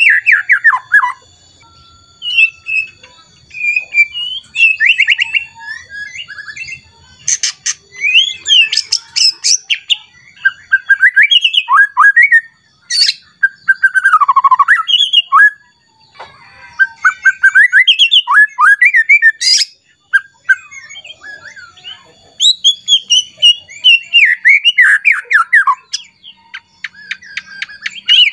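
White-rumped shama singing loudly: a varied run of rich whistled phrases, fast down-sweeping notes and rapid clicking chatters, broken by short pauses. It is the agitated, full-voiced song a male shama gives when worked up against a rival.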